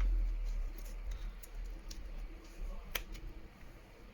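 Light handling of an opened smartphone with small repair tools: scattered faint clicks and taps, with one sharper click about three seconds in, over a low rumble that fades after the first second.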